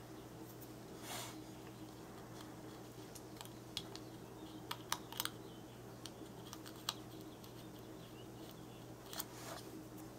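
Faint, irregular small clicks and paper handling as a thin strip of cardstock is fiddled into the slot of a lever-style word window craft punch.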